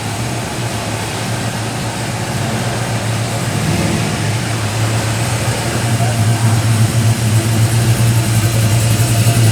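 A vehicle engine running steadily with a deep hum, getting gradually louder.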